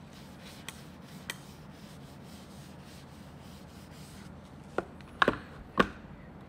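Paper tissue rubbing and wiping over a plastic lunch box, with a couple of small clicks, then three sharp knocks near the end as the plastic box and its utensils are set down on a desk.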